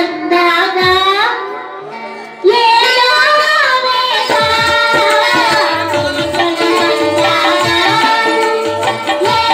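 A woman singing with instrumental and drum accompaniment. Her held, wavering note fades about a second and a half in. Singing and music come back loud about a second later, with a regular drum beat under them after that.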